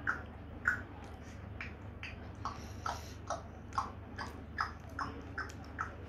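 African grey parrot making short clicking chirps, about two a second, some dropping slightly in pitch.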